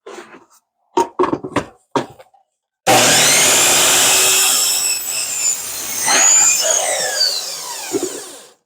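Sliding miter saw crosscutting a 2x4: a few short knocks first, then the saw starts abruptly about three seconds in and runs through the cut, its whine falling in pitch as the blade winds down near the end.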